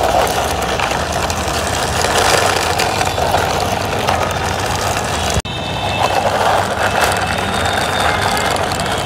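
Plastic wheels of a six-wheeled toy truck rolling over a rough concrete wall top as a hand pushes it along, a steady rolling noise that breaks off for an instant about five and a half seconds in.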